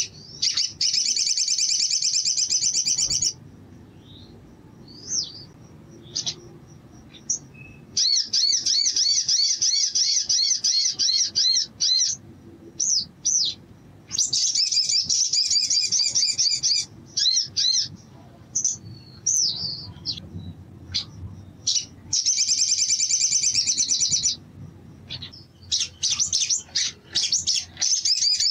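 Male olive-backed sunbird singing: five long bouts of fast, high trills, each two to four seconds, separated by short chirps.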